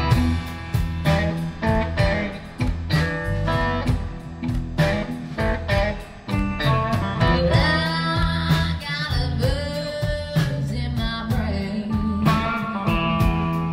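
Live country band playing through the PA, heard from the audience: guitars over bass and a steady drum beat, with a woman's voice singing from about halfway through.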